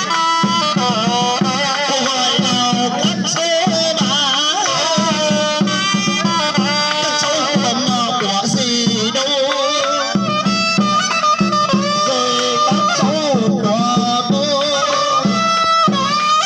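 Traditional Vietnamese funeral band music: a wavering, pitch-bending melody over a steady repeated drum beat.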